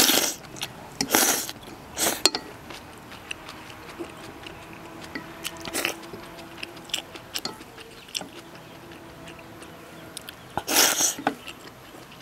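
A person slurping rice noodles in spicy broth: three quick slurps in the first two seconds, then chewing with small clicks, then a longer slurp near the end.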